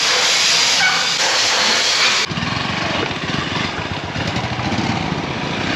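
A loud, steady hiss of a pressure-washer jet cuts off about two seconds in. Then a KTM Duke 200's single-cylinder engine runs with a fast, even beat as the bike rolls off.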